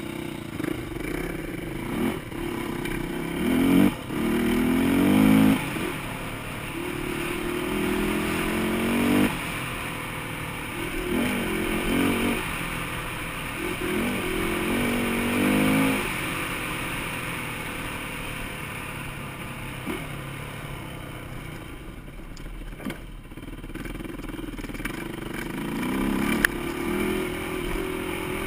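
Yamaha dirt bike engine revving up and easing off over and over as it is ridden over a rough dirt trail, its pitch rising in several long pulls.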